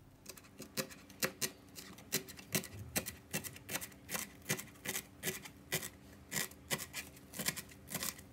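Kitchen knife chopping fresh herbs on a plastic cutting board: a steady run of sharp taps at about three strokes a second.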